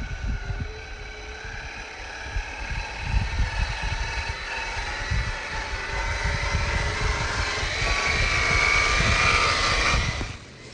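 Electric motor and gear whine of a Traxxas TRX-4 Sport 1/10-scale RC crawler, growing louder as the truck drives close, with wind buffeting the microphone. The sound cuts off suddenly near the end.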